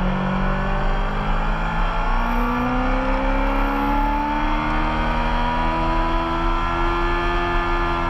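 Racing motorcycle engine running hard on track, heard from an onboard mic with wind noise. The engine note climbs steadily for several seconds as the bike accelerates, then dips near the end.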